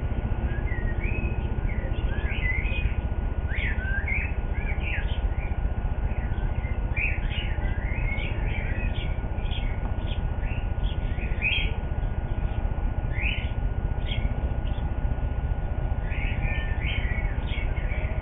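A baby bird cheeping: rapid short chirps in quick runs, with a brief lull about two-thirds of the way in, over a steady low rumble.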